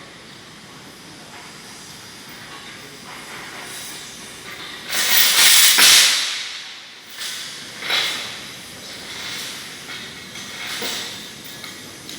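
Hoist crane running under a test load, a steady mechanical hiss that swells, loudest about five to six seconds in and again briefly near eight and eleven seconds.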